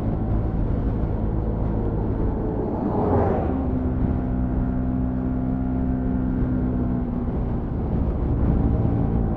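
Bajaj Pulsar NS200 FI's single-cylinder engine pulling steadily uphill under load. About three seconds in there is a brief rush of noise as an oncoming vehicle goes by, then the engine holds a steady note.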